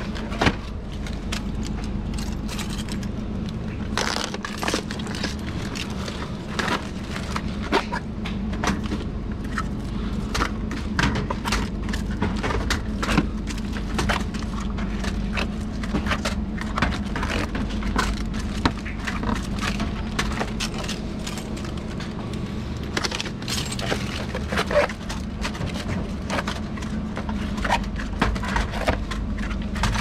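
Bottles knocking and clinking as they are set onto fridge shelves one after another, in an irregular run of sharp clicks over a steady low hum.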